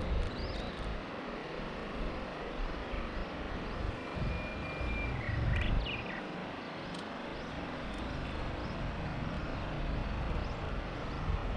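Wind rush and a gusty low rumble on a bicycle-mounted camera's microphone while riding outdoors, growing louder near the end. A bird gives a high whistled call, held and then wavering, about five seconds in.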